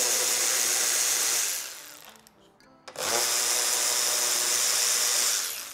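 Cordless electric ratchet spinning in two runs of about two and a half seconds each, with a pause of about a second between, backing out fasteners on top of the engine.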